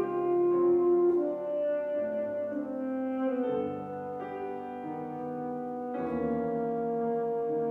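Alto saxophone playing a slow melody of long held notes with piano accompaniment; fresh piano chords enter about three and a half seconds in and again about six seconds in.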